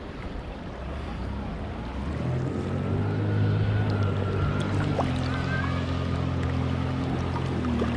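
Water and wind noise from a moving boat, with music coming in about two seconds in and getting louder, its low bass notes held steady and changing in steps.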